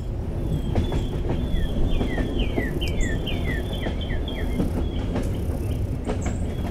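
A bird sings a run of quick descending chirps, repeated many times, over a steady low rumble with scattered clicks.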